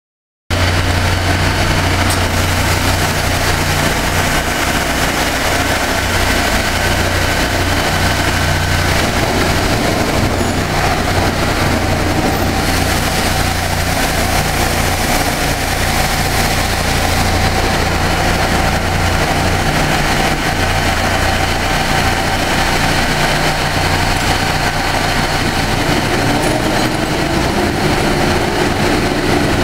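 MIDACO automatic pallet changer running, moving a large loaded pallet slowly along its rails into a YCM vertical machining center, with a steady low mechanical hum from the machinery. The sound starts about half a second in.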